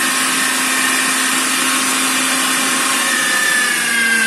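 Electric meat grinder running steadily with a hum and whine as it minces raw chicken breast. About three seconds in its pitch drops slightly as the meat is pressed down the feed tube with the pusher and the motor takes the load.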